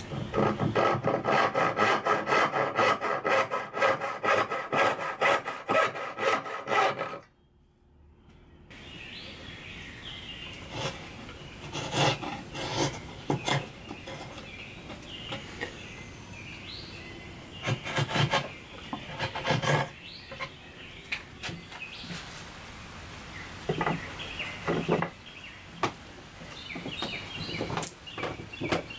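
Hand tool stroking back and forth on oak in quick, even strokes for about seven seconds, cutting off suddenly; after a brief near-silent gap, slower, scattered single strokes on the wood.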